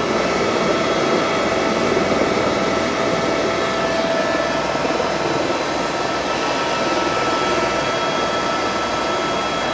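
Eurocopter helicopter's turbine and rotor heard from inside the cabin: a loud, steady rush with a steady high turbine whine.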